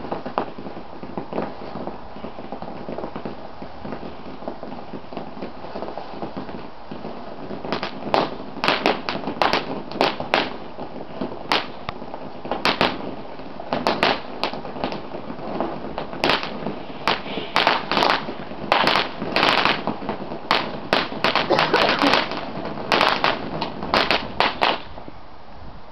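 Bulldog Rain Storm fountain firework burning with a steady spraying hiss. From about eight seconds in, sharp crackling pops break out over the hiss, irregular and often in quick clusters.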